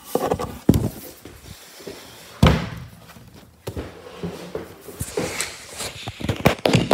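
A few thumps and knocks from a cordless impact driver and the camera being handled, the loudest about two and a half seconds in, with no motor running.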